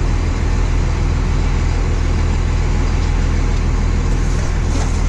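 An engine running steadily under way, a loud, even, low drone.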